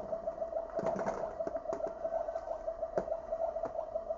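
A steady electronic buzzing tone with a fast flutter, typical of a battery-powered toy kitchen playset's sound effect, with a few sharp clacks of plastic toy pieces being handled.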